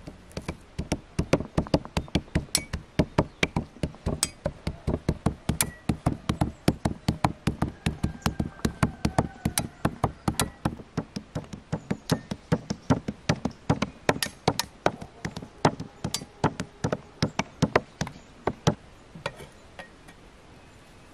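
Meat cleaver chopping raw meat into mince on a wooden stump chopping block: rapid, even blows, about four or five a second, thinning out and stopping near the end.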